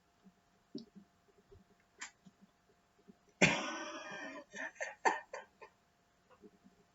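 A sudden hard cough about three and a half seconds in, followed by a few short, broken breathy vocal sounds. Before it there are only faint small clicks.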